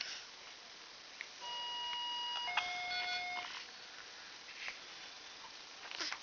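Electronic two-note beep: a steady higher tone for about a second, then a lower tone for about a second, like a hi-lo alarm or toy siren. A few faint clicks around it and a brief noise near the end.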